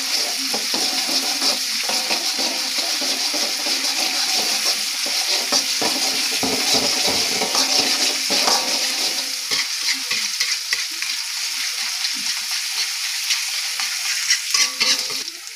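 Minced garlic sizzling steadily in hot oil in a wok, while a metal spatula stirs it, scraping and tapping against the pan.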